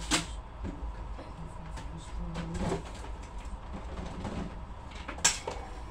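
Two sharp knocks or clicks, one at the start and a louder one about five seconds in, over a steady low hum.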